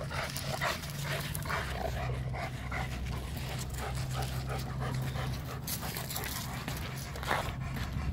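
Cane Corso dog panting hard in quick, even breaths, over a steady low hum.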